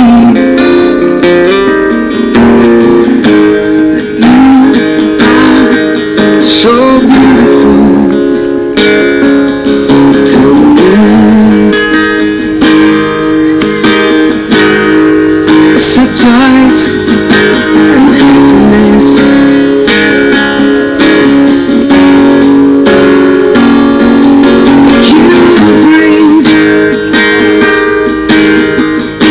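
Acoustic guitar strummed in a song, with a man singing over it.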